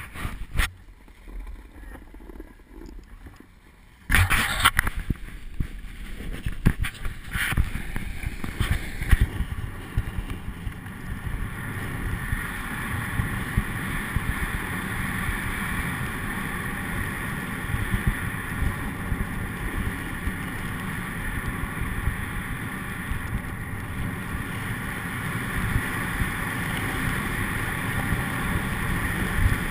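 Snowboard riding through deep powder: a steady rushing of wind and snow hiss past the camera that starts abruptly about four seconds in, after a few quieter knocks, with scattered bumps over the next few seconds.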